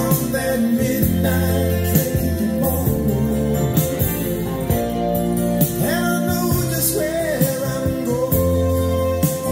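A song with guitar plays through a pair of Grundig Box 353 bookshelf speakers driven by a SABA MI210 amplifier. This is a stretch without sung lyrics between the verses.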